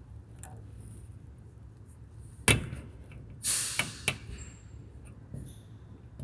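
Square plastic push clips being pried out of an underbody panel with a Matco SDSR4-2 trim clip removal tool: one sharp snap, a brief scraping rush about a second later, then a lighter click or two.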